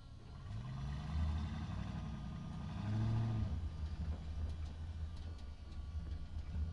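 Truck driving in a parking structure: its engine revs up about half a second in and again around three seconds in, then runs steadily at a low pitch.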